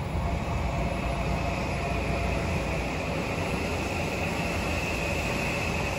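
Steady mechanical drone with a faint high whine from a parked mobile pet-cremation van that is running.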